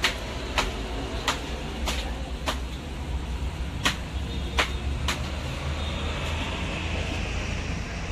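Steady low rumble of street and traffic background noise, with a row of sharp clicks roughly every half second through the first five seconds.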